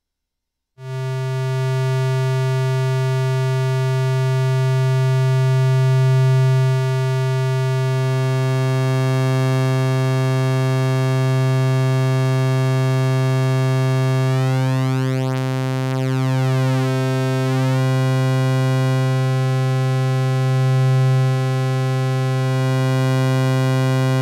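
Animodule Lil Monster analog Eurorack VCO sounding one steady low note, its square, triangle and saw outputs mixed together. It comes in about a second in, and its tone changes as the waveform mix is adjusted, with a brief sweeping shimmer near the middle.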